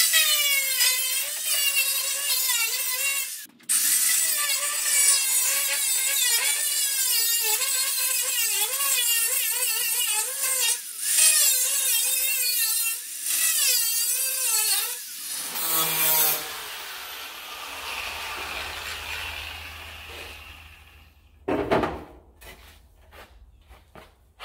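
Angle grinder with a cutoff disc cutting through a car's sheet-steel parcel shelf, its whine wavering up and down as the disc bites. It stops briefly a few times and winds down about fifteen seconds in, followed by a few short knocks near the end.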